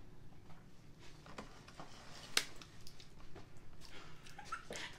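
Quiet room with scattered faint clicks and taps of hands handling small things, and one sharper click about two and a half seconds in.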